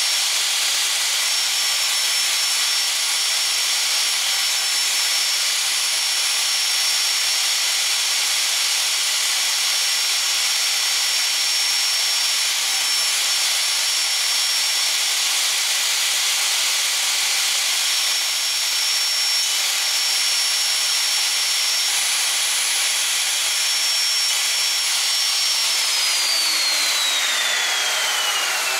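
Makita 3612 plunge router running steadily, its 1/4-inch spiral fluted bit cutting a mortise in the end of a Lyptus board and meeting some resistance in the hard wood. About 26 seconds in, the motor is switched off and its high whine falls away as it spins down.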